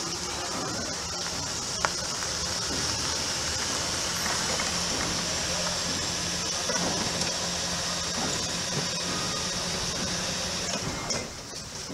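Toyota hybrid sedan rolling slowly across a dirt lot and pulling up, a steady running noise with hiss. A sharp click comes about two seconds in.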